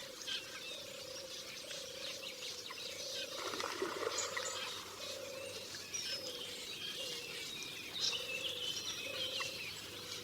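Forest ambience: several birds chirping and whistling over a low call that repeats steadily in a pulsing rhythm, with a brief rougher sound about three and a half seconds in.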